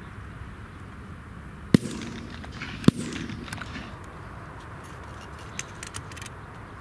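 Two shotgun shots fired at wood pigeons, about a second apart, each followed by a brief echo.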